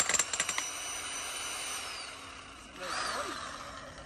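Electric jackhammer hammering in fast, even strokes that stop about half a second in, powered from a battery unit with no compressor engine running. After that only a quieter steady hum with a high whine that falls away, and a short louder noise about three seconds in.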